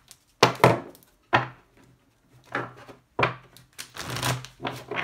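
Deck of tarot cards being shuffled and handled by hand: a string of sharp, irregularly spaced slaps, busiest about four seconds in.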